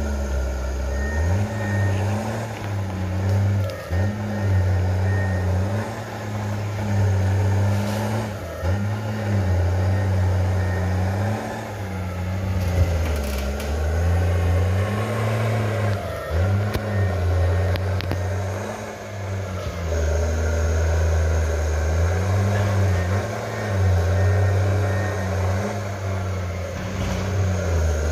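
Crawler tractor's diesel engine working under load, its note sagging and recovering again and again every second or two as the blade pushes, with a few knocks from the machine.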